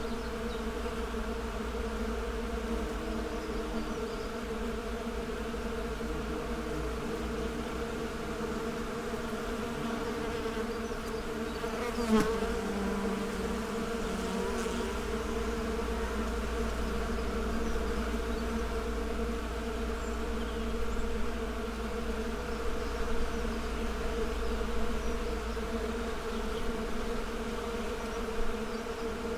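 Many bees buzzing together in a continuous hum, with a brief louder buzz about twelve seconds in as one comes close.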